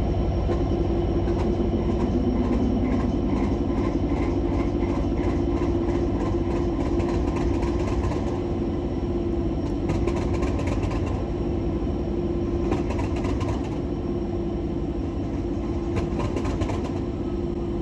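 British Rail Class 37 diesel-electric locomotive's English Electric V12 diesel engine running steadily just after a cold start, with a steady drone and a few faint knocks.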